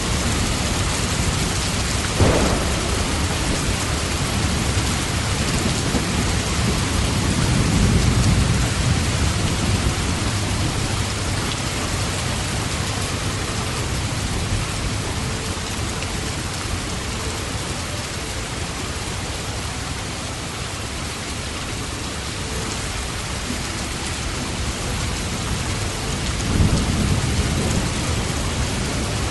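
Steady heavy rain falling, with thunder: a sharp crack about two seconds in, then low rolling rumbles swelling a few seconds later and again near the end.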